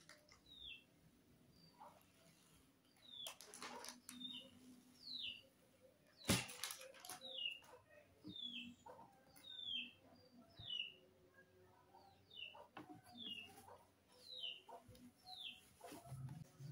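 A small bird chirping over and over in short, falling notes, about one a second, against soft rustling and crinkling of packaging handled by hand. A sharp crinkle about six seconds in is the loudest sound.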